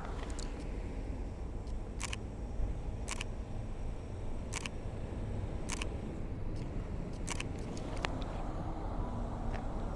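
Camera shutter firing about seven times, sharp single clicks spaced roughly one to one and a half seconds apart, over a low steady background rumble.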